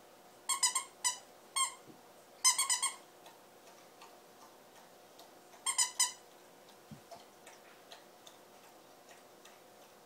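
Squeaky plush dog toy squeaking in quick runs of short, high squeaks, about a dozen in all, bunched in the first three seconds with one more run about six seconds in.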